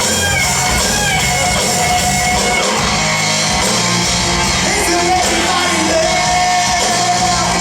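Live rock band playing loudly, with a man singing over it in long held, shouted notes.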